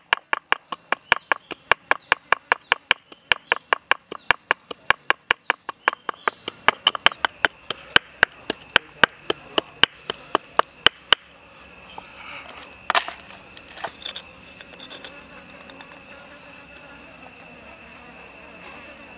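Wooden pestle pounding peppercorns in a stone mortar: sharp, even knocks about three a second, stopping about eleven seconds in. After that comes a steady high insect buzz, with a couple of brief clinks.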